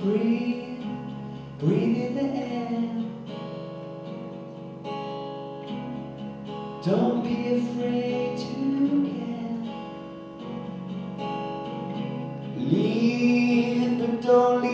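Acoustic guitar strummed in a few slow chords, each left to ring for several seconds, with a man singing softly over it at times.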